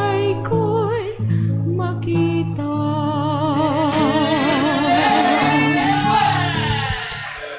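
A woman singing a Tagalog hymn solo with wide vibrato over a sustained instrumental accompaniment, holding a long final note from about three seconds in that fades out near the end.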